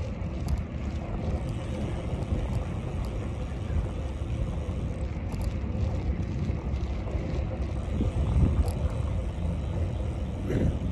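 Wind buffeting the microphone while riding a bicycle: a steady low rumble that goes on without a break.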